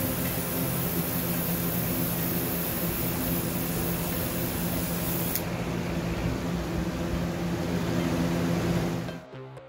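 Airbrush hissing as it sprays clear top coat, over the steady hum of its air compressor. The highest part of the hiss stops about halfway through, and the hum and remaining hiss stop shortly before the end.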